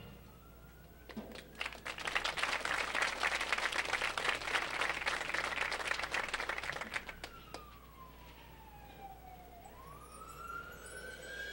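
A whistle-like tone sliding slowly up and down like a siren, used as a sound effect in a quiet break in a marching band show. For several seconds it is joined by a dense, irregular patter.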